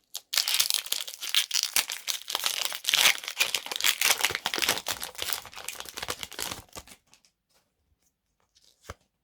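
Pokémon booster pack wrapper being torn open and crinkled, a dense crackling for about seven seconds that then stops, with one small click near the end.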